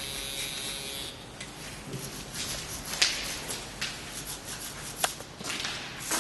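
Scratchy rubbing of a line being drawn by hand on a concrete wall, broken by a few sharp clicks, the loudest about halfway through. A steady electric hum cuts off about a second in.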